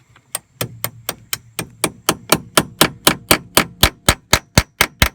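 A hammer tapping the new hinge pin of a Mercedes W126 door check strap into place: about twenty even metal-on-metal taps, roughly four a second, growing louder after the first second and then stopping.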